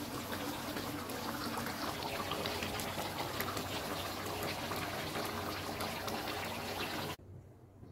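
Fish curry simmering in a steel pan, a steady bubbling sizzle with fine crackles; it cuts off suddenly near the end.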